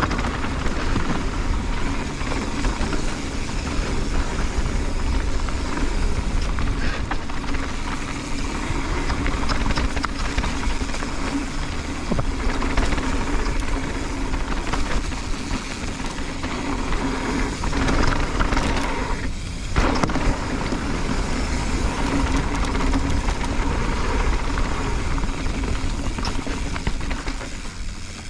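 Mountain bike ridden fast down a dirt and gravel flow trail: a steady rumble of wind on the camera microphone and tyres on loose dirt, with scattered knocks and rattles from the bike over bumps and a brief lull about two-thirds of the way through.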